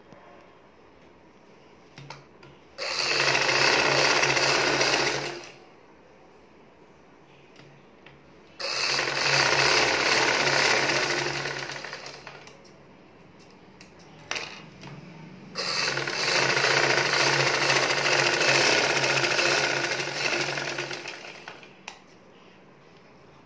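Vidya sewing machine stitching in three bursts of a few seconds each, every run starting suddenly and tapering off as it slows, with a few light clicks in the pauses between.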